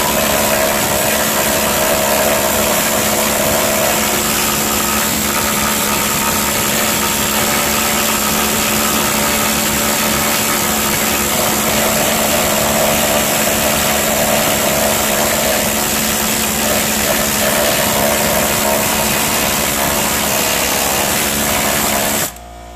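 Harbor Freight compact air needle scaler running steadily, its needles hammering rust scale off steel. It cuts off suddenly near the end.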